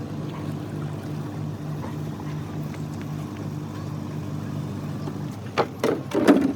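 Small outboard motor running steadily with an even pulse, cutting off about five seconds in, followed by a few sharp knocks.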